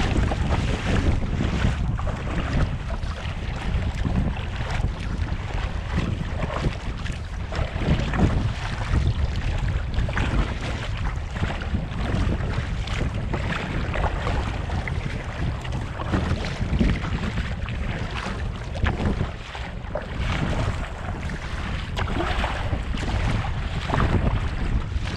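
Wind buffeting the microphone in a steady low rumble, with water splashing and lapping irregularly around a kayak on open water.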